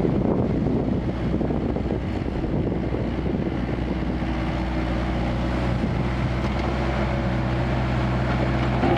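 Kubota KX161-3 mini excavator's diesel engine running steadily, with wind on the microphone.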